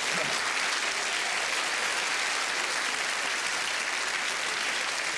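Theatre audience applauding and laughing, a dense steady clapping held through to the end.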